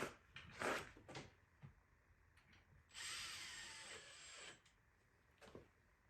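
Power drill driving a wood screw into a hinge, a steady whir lasting about a second and a half, with a few light handling clicks before it.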